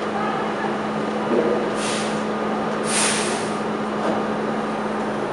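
R32 subway train standing in the station with its doors open, giving off a steady hum, with two short hisses of air about two and three seconds in.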